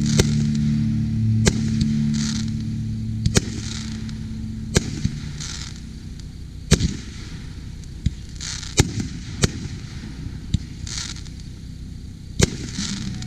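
Aerial fireworks shells bursting: about nine sharp bangs at uneven intervals, with short spells of high crackling hiss between them.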